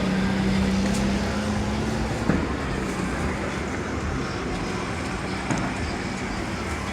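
Street traffic noise, with a vehicle engine humming steadily for the first couple of seconds before it fades into the general roadway noise.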